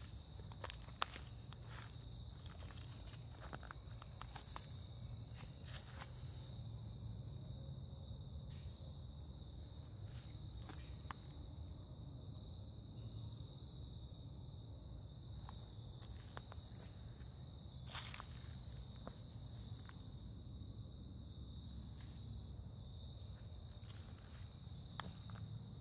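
Insects chirring in a steady, unbroken high-pitched chorus, with scattered footsteps and crunches on the leaf-littered forest floor over a low rumble.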